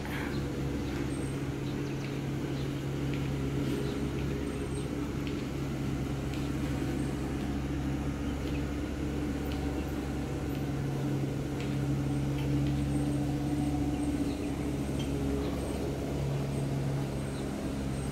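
Steady low mechanical hum at a constant pitch, with faint scattered ticks above it.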